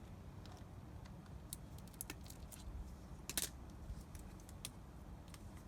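Scattered faint clicks and snips of a cutting tool working through a LiPo battery pack's cell tabs and wrapping, the sharpest about three and a half seconds in.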